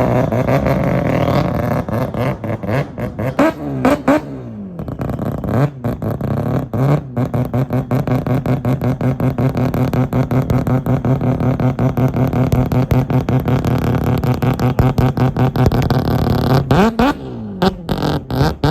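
Modified car engine running with a fast, choppy lope. It is revved at the start and drops back about four seconds in, idles evenly, then is revved again and falls back near the end.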